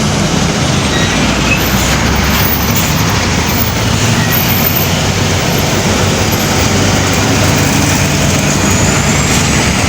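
Loud, steady roadside traffic noise from heavy vehicles: a diesel engine's hum with tyre and road noise, with no distinct horn blast.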